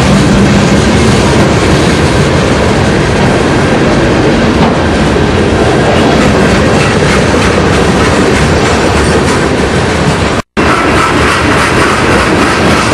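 Train cars rolling close by, a loud steady rumble with wheels clacking over the rail joints. The sound breaks off completely for an instant about ten and a half seconds in, then carries on.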